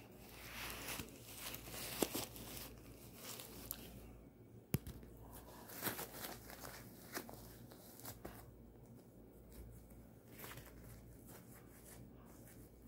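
Disposable diaper being handled and fastened: faint irregular plastic rustling and crinkling, with tearing of the tape tabs and a few light sharp clicks.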